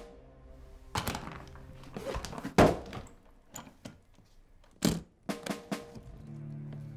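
A suitcase being handled: several heavy thuds and knocks, the loudest about two and a half seconds in, then a quick run of latch clicks near the end. Under it runs a low music score that swells into a steady drone at the close.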